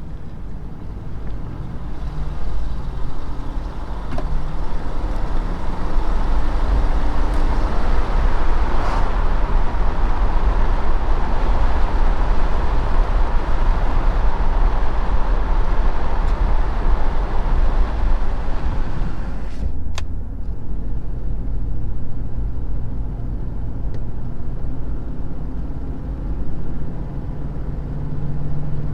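Toyota Tundra's 5.7-litre V8 engine running with a tick that a new left exhaust manifold has not cured. A rushing hiss swells through the middle and cuts off at a sharp click about twenty seconds in.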